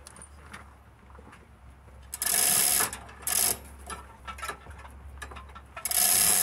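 Hand ratchet wrench clicking in three quick bursts, the first about two seconds in and the longest, a short one a second later and another near the end, as bolts are worked loose on the engine.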